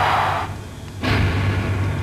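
Promo soundtrack sound effects: a loud rushing noise cuts off about half a second in, leaving a low steady drone. A single booming hit lands about a second in and dies away.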